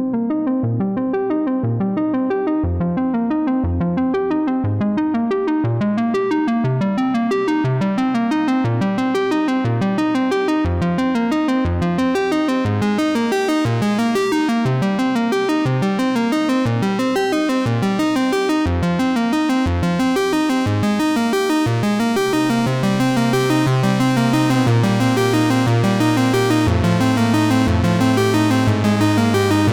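Background music: synthesizer and keyboard playing a steady run of notes, with a sustained bass line coming in about two-thirds of the way through.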